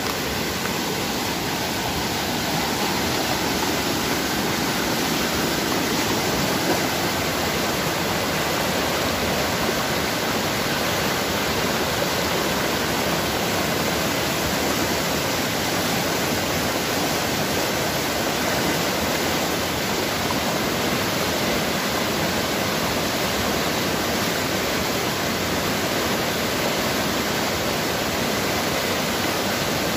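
Swollen river in flood, muddy water rushing over and around rocks in a steady, loud, unbroken rush of water noise.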